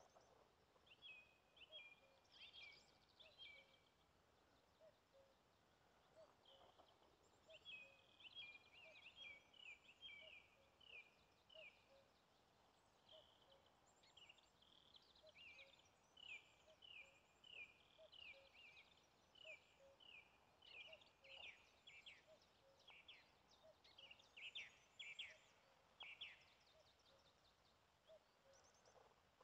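Faint songbirds chirping and singing: quick series of short, high chirps, repeated over and over with brief pauses between runs.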